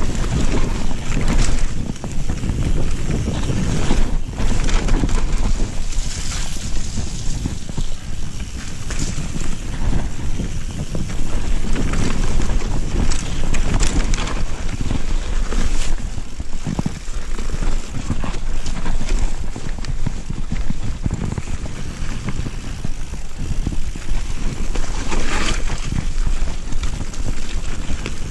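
Wind buffeting the microphone of a GoPro on a mountain bike ridden fast downhill, over a continuous rumble of knobby tyres rolling on a dirt and gravel trail. The full-suspension bike rattles and knocks irregularly as it goes over rocks and bumps.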